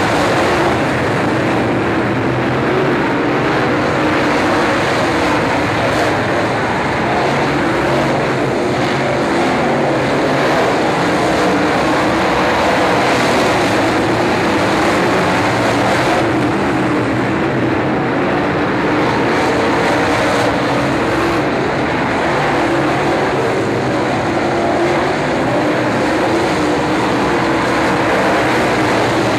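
Dirt late model race cars' V8 engines running together as the field laps a dirt oval, a steady loud engine drone.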